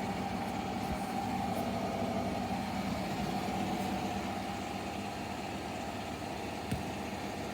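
Hotpoint WMFUG942 washing machine drum spinning down after a spin, its motor hum slowly fading, with one short knock near the end. The drum is running very off balance, which the owner puts down to a faulty drum spider.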